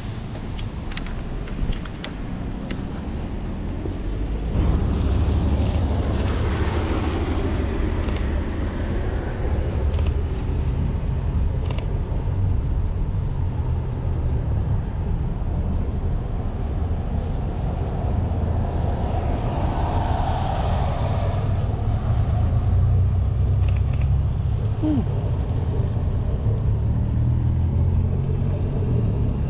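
City street traffic: a steady low rumble with cars passing, swelling twice, once after about six seconds and again around twenty seconds in. A few sharp clicks come in the first few seconds.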